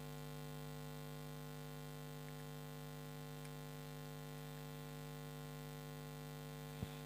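Faint, steady electrical hum, a low buzz with no other sound, and a brief tick just before the end.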